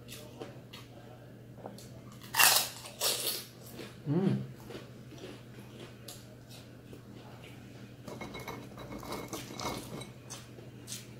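Close-up crunching and chewing of crispy fried food, with two loud crunches about two and a half and three seconds in. A short rising-and-falling vocal sound comes about four seconds in, and a further run of crunching comes near the end.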